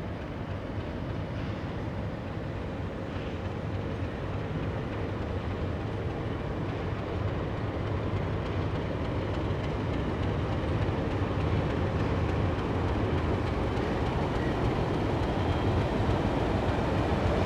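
Diesel locomotive running past close by on the near track: a steady low engine rumble with rail noise that grows gradually louder.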